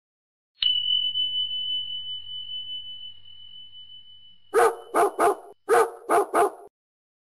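A high steady tone starts suddenly and slowly fades, then a dog barks six times, in two quick sets of three.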